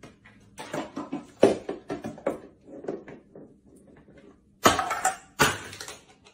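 Cans and a bowl knocking and clattering on a pantry shelf as a cat moves among them, then two loud crashes near the end as things fall to the floor.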